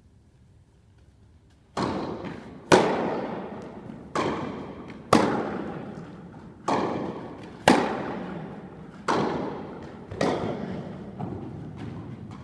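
Tennis rally: a ball struck back and forth by rackets and bouncing on an indoor court, about nine sharp pops roughly a second apart, each ringing out in a long echo in the large hall. It begins about two seconds in.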